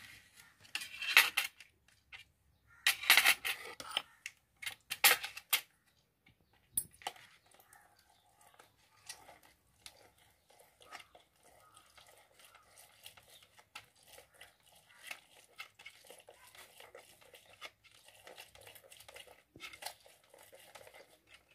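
Oranges being cut with a knife on a plate, with several loud scrapes and clatters in the first six seconds. Then orange halves are twisted and pressed on a plastic hand citrus juicer: a soft, irregular rubbing and squishing.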